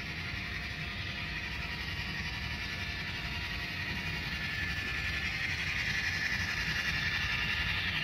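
Model train running on track: the Texas & Pacific GP9 model diesel locomotive's motor and the wheels of it and its passenger cars rolling over the rails, a steady whirring hiss that grows louder about halfway through as the train comes close.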